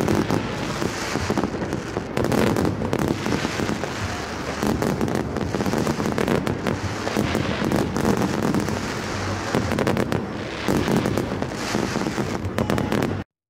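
Fireworks going off, a dense continuous crackling and popping that cuts off suddenly near the end.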